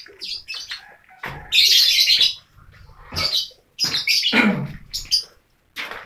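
Caged lovebirds calling in a breeding aviary: a string of short, high-pitched chirps and calls, the longest and loudest about a second and a half in.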